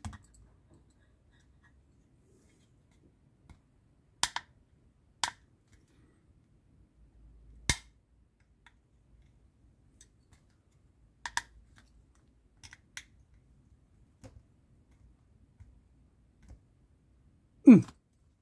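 Scattered sharp clicks and taps of a small screwdriver and tiny screws against the door panel of a 1:8 scale Citroën 2CV model, about a dozen spread out, singly or in pairs, as a screw is tried in a hole it will not hold in. Near the end there is a brief, louder voice sound with a falling pitch.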